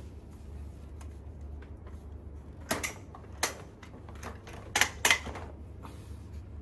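Plastic clicks and clacks of a baby high chair's food tray being worked and shifted by hand: four sharp clacks between about three and five seconds in, over a low steady hum.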